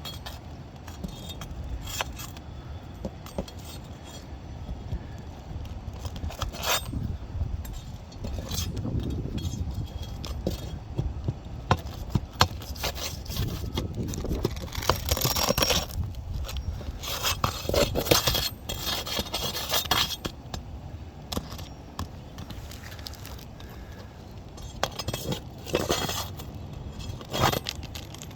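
Irregular clinks, knocks and scraping from hands working on parts with tools during a repair, busiest in the middle stretch.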